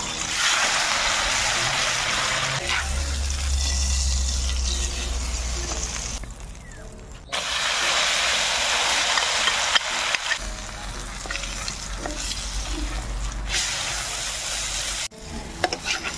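Tortang talong (egg-dipped eggplant) frying in hot oil in a metal wok, sizzling steadily. The sizzle drops away about six seconds in, comes back a second later, and cuts off suddenly near the end.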